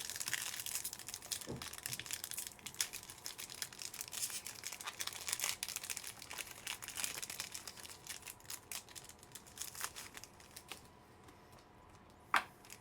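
Trading-card pack wrappers being crinkled and torn open and cards handled: dense crinkling and rustling that dies down about ten seconds in, with one sharp click near the end.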